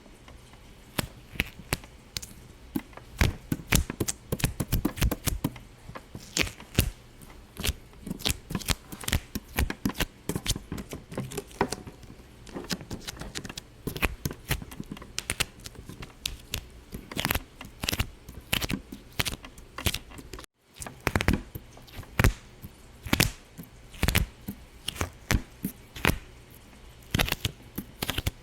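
An irregular run of sharp pops and clicks, several a second, with a brief break about twenty seconds in.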